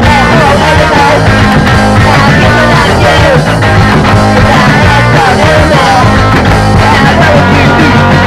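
Loud garage punk rock recording, a full band playing at a steady driving beat.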